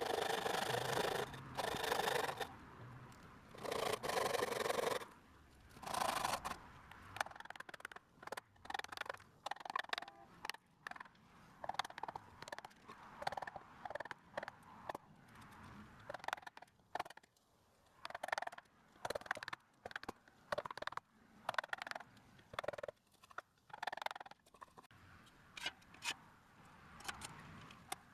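Hand-tool work on a wooden door: scraping and rubbing strokes, a few long ones in the first five seconds, then many short irregular ones.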